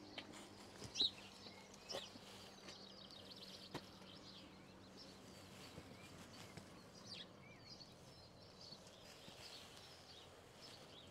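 Faint birdsong: small birds chirping and trilling, with a few soft taps of footsteps on a path.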